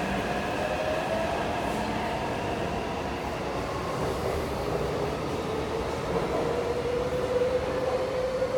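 Taipei Metro train's electric traction motors whining on the platform over a steady rumble. The pitch of the whine glides down through the first half and rises again in the second, the sound of a train slowing and then picking up speed.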